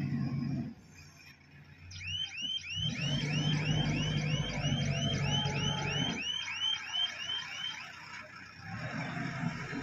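An electronic warning alarm chirping in a regular up-and-down pattern about three times a second for roughly six seconds, over the low running of an excavator's diesel engine. The engine drops away just under a second in, picks up again about three seconds in, eases off and builds again near the end.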